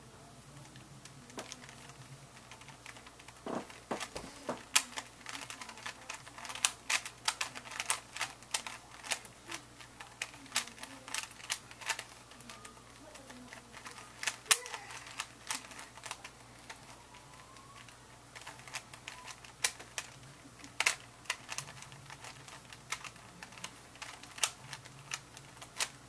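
Plastic clicks and clacks of a Rubik's Cube's layers being twisted by hand, in quick irregular flurries with a short lull a little past the middle.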